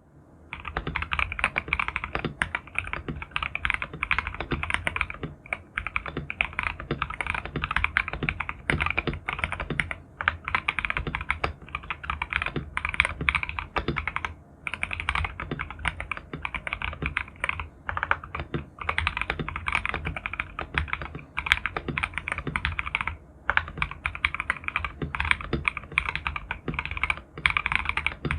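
Typing on a KBD67 Lite custom mechanical keyboard with stock Durock L7 linear switches, a polycarbonate plate and PBT Cherry-profile keycaps: fast, continuous keystrokes in runs, broken by several brief pauses.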